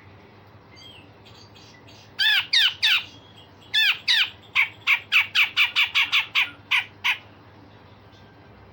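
Grey-cheeked bulbul (cucak jenggot) calling: three loud arched notes about two seconds in, then a fast run of sharp notes, about four a second, that stops about seven seconds in.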